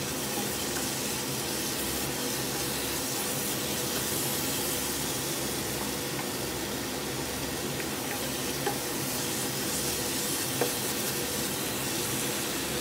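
Blended spice paste with salam and lime leaves sizzling steadily in oil in a nonstick saucepan while it is stirred with a wooden spatula, with a couple of light knocks of the spatula against the pan.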